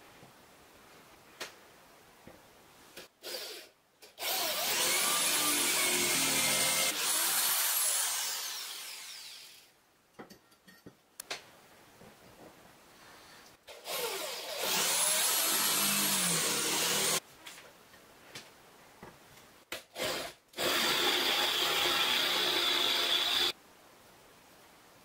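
Cordless drill with a twist bit drilling through a metal hinge plate, in three bursts of a few seconds each, its whine gliding up and down as the motor speed changes; the first burst dies away slowly. Light clicks of handling between the bursts.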